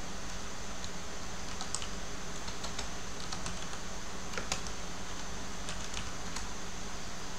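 Computer keyboard typing: about a dozen irregular keystrokes as a short command is typed, from about a second in to near the end, over a steady background hiss.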